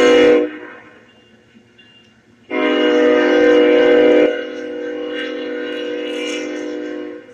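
Union Pacific diesel locomotive's multi-chime air horn sounding a short blast, then about two seconds later a long blast of nearly five seconds that drops in loudness partway through. This is the closing short-and-long of a grade-crossing horn signal.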